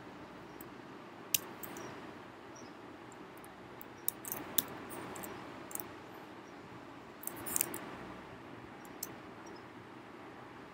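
Scattered computer keyboard key clicks, about ten single presses with a few in quick runs, over a steady faint hiss of room tone.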